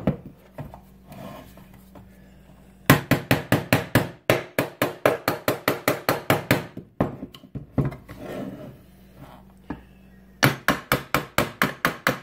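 Claw hammer tapping the housing of a Grundfos boiler circulator pump to break the motor loose from the cast-iron pump body: two runs of quick sharp taps, several a second, the first starting about 3 s in and lasting about four seconds, the second starting near the end, with softer knocks of handling between them.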